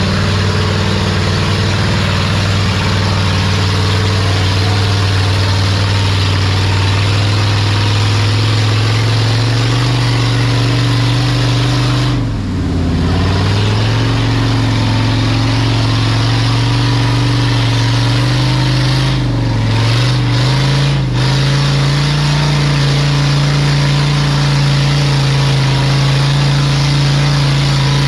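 Off-road vehicle engine running steadily. Its pitch drops sharply and climbs back about twelve seconds in, and dips briefly twice more around twenty seconds, as the throttle is eased and reapplied.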